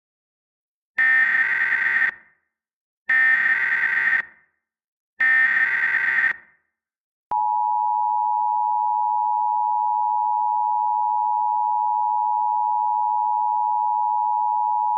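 Emergency Alert System tones: three one-second bursts of the screeching SAME header data tones, then about seven seconds in the steady two-tone EAS attention signal starts and holds.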